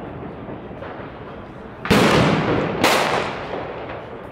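Two loud firework bangs about a second apart, each dying away over about a second, following the fading tail of an earlier bang.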